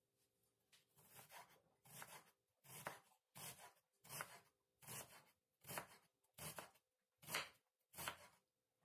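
Kitchen knife chopping an onion on a wooden cutting board: quiet, even strokes a little faster than one a second, starting about a second in.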